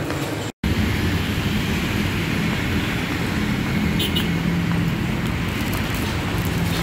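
Steady road-traffic noise from passing cars and other vehicles, with a low engine hum, cut in abruptly after a brief drop to silence about half a second in.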